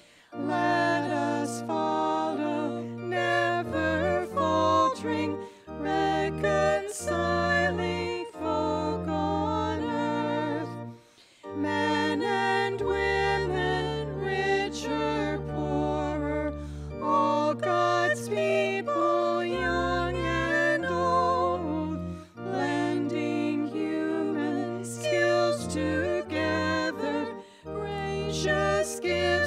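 Two women singing a hymn as a duet over low, sustained accompaniment notes, phrase by phrase, with a short break between lines about 11 seconds in.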